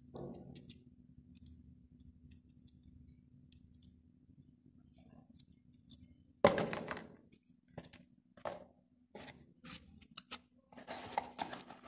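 Hand handling of a brass body-jet fitting and an L-shaped Allen key: scattered light clicks and taps of metal parts, with one sharper knock about six and a half seconds in.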